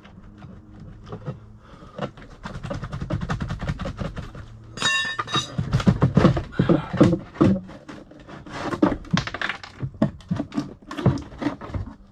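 Lotus Esprit headlight pod being worked loose and moved by hand, giving a dense run of knocks and rattles, with a short squeak about five seconds in. The pod is waterlogged, with water and ice inside.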